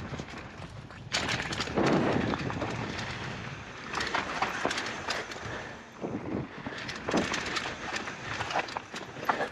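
Polygon Siskiu N9 mountain bike descending a dirt flow trail: tyre noise on dirt and the bike rattling over bumps, coming in loud rushing surges with many sharp clicks and knocks.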